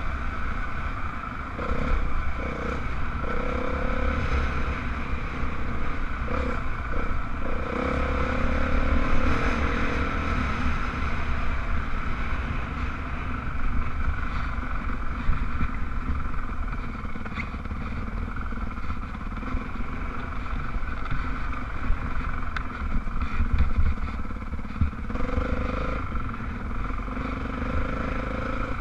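Dirt bike engine running steadily on a rough trail, its note shifting briefly with the throttle several times, with occasional knocks and rattles from the bike over the bumps.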